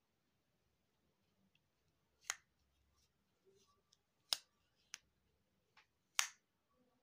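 Sharp plastic clicks from a Samsung SGH-Z400 slider phone being handled and turned over in the hand: five in all over about four seconds, the first and last the loudest.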